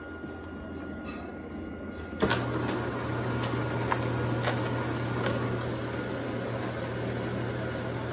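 The motor of an automatic self-cleaning litter box starts about two seconds in and runs with a steady low hum as its rake sweeps through the litter, with a few scattered clicks.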